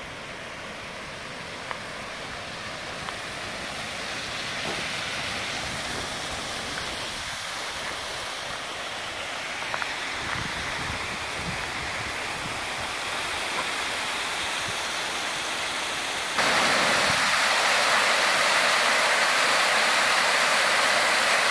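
Mountain waterfall rushing: a steady wash of falling water that grows gradually louder, then steps up sharply about three-quarters of the way through.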